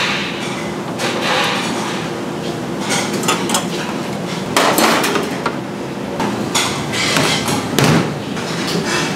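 Repeated metal clanks and knocks from a wire grilling rack and tongs against a ceramic plate and steel counter as a whole grilled cutlassfish is slid off the rack, over steady kitchen background noise.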